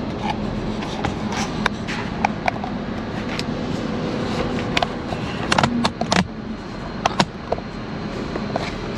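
Steady road and engine noise inside a moving minivan's cabin, with a scatter of sharp clicks and knocks from the camera being handled and turned on its mount. The loudest knocks come a little past halfway.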